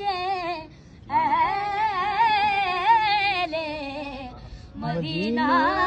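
A boy singing an Urdu naat unaccompanied in a high voice, drawing out long, wavering notes and breaking off briefly twice, about a second in and past the middle.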